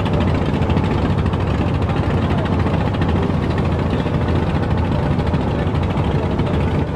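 A boat's engine running steadily under way, a constant low, rapidly pulsing drone.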